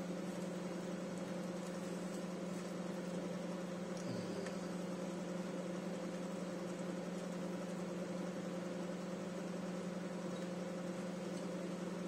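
A steady low electrical hum from a kitchen appliance, with a faint tap or two from a plastic fork stirring food in a plastic bowl.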